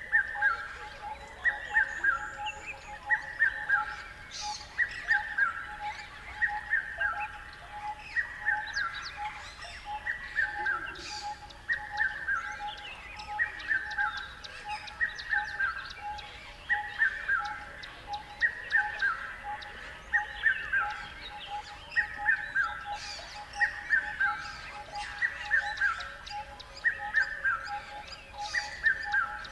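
Birds chirping. One bird repeats a short falling phrase about once a second, over a steady, rapidly pulsing tone and scattered higher chirps from other birds.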